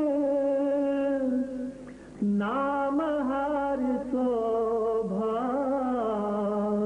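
A solo voice sings a Sikh devotional hymn (shabad) in long, drawn-out notes with gentle wavers, with a short break for breath about two seconds in.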